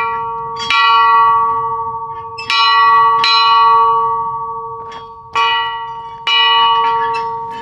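A bell rung by hand, struck about six times in three pairs. Each pair comes roughly two and a half to three seconds after the last. Every strike rings on with a steady, layered tone that slowly fades.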